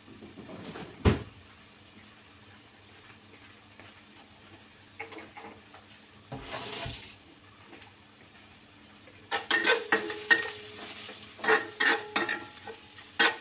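A metal spatula stirring in a honeycomb-textured wok, starting about nine seconds in with rapid scraping and clinking that rings against the pan, over faint sizzling of minced garlic frying in oil. A single sharp knock about a second in.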